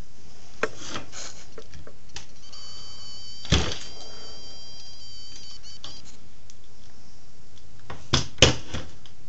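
Electric drill used as a screw gun, its motor whining at a steady high pitch for about four seconds while driving a small screw into a plastic wall-mounting rail. There is a sharp knock about a second into the whine and two more knocks in quick succession near the end.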